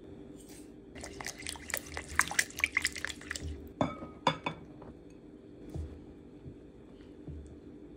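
Ingredients being added to a ceramic mixing bowl: a quick patter of many small clicks and drips, then a few sharp ceramic clinks about four seconds in. After that, only faint soft sounds as flour is poured in and stirred by hand.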